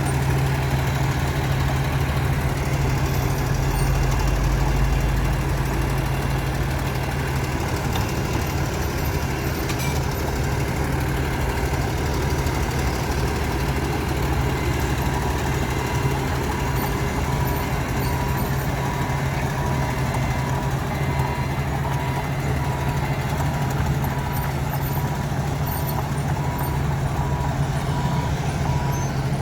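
Heavy diesel earthmoving machinery, a dump truck and a crawler bulldozer, running steadily with a deep engine drone. From about halfway a reversing alarm beeps at an even pace over the engines.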